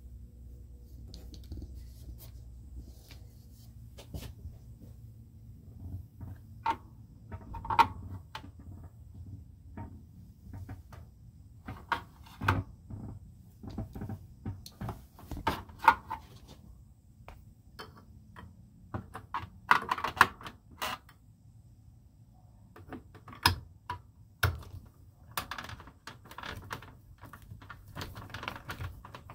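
Screwdriver and hands working on a plastic ceiling vent fan: irregular clicks, taps and short scrapes of the tool against the plastic housing and trim.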